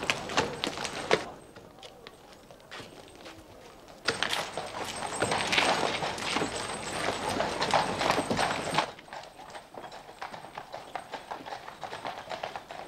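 Horse hooves clip-clopping on a street, with the sound swelling to a busy, dense clatter from about four seconds in and dropping back to lighter hoofbeats near the end.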